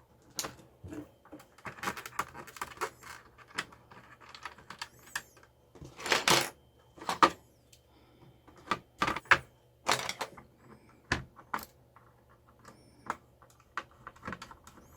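Irregular plastic clicks, knocks and short scrapes as a mechanical keyboard's case and parts are handled and fitted back together.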